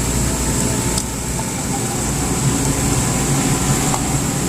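Refrigeration compressor of a beer-keg chiller humming steadily under power without starting, its start capacitor straining to turn it over. This is the typical sign of a hard-start compressor, which may be stuck.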